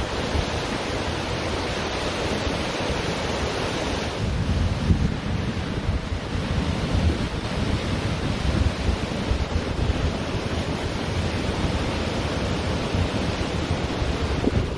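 Ocean surf washing continuously on a beach, with wind buffeting the microphone as a fluttering low rumble.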